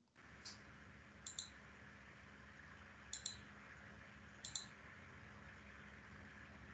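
Faint computer mouse clicks: four of them, most as quick double clicks, a second or two apart, over quiet room tone.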